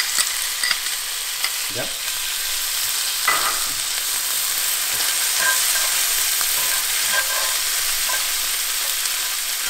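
Chopped shallots, garlic, bell pepper and roasted red peppers sizzling in olive oil in a cast-iron skillet, with a spatula scraping and stirring through them. The sizzle is a steady hiss.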